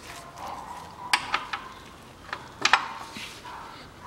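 Sharp metal clicks and clinks of a wrench with a long extension bar being worked onto the oil-pan drain plug, about half a dozen taps between one and three seconds in. The plug is overtightened and stuck fast.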